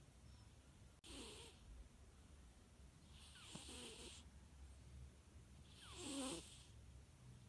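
Domestic cat snoring softly in its sleep: three snoring breaths about two and a half seconds apart, each a soft hiss with a low wavering undertone.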